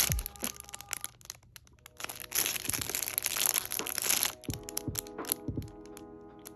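Plastic packaging crinkling and crackling as it is handled and opened, loudest in the middle, over soft background music with sustained notes.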